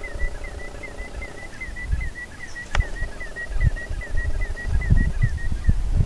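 Common snipe giving its rhythmic 'chip-per' song, a short note repeated evenly about four to five times a second. Wind rumbles on the microphone in gusts, and there is a single sharp click just before the middle.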